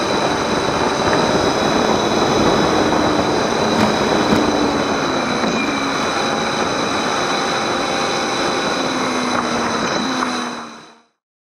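Motorcycle on the move, recorded from a camera on the bike: steady heavy wind and road noise with the engine note underneath, its pitch falling a few times as the bike slows toward a roundabout. The sound fades out quickly just before the end.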